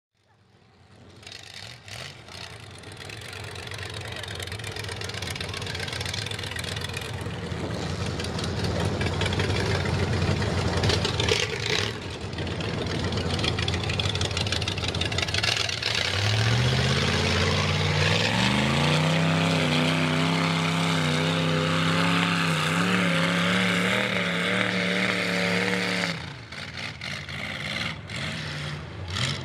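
Big-block Ford 460 V8 with open headers running under load, then revving hard about halfway in, its note climbing and held high for several seconds before dropping off sharply near the end.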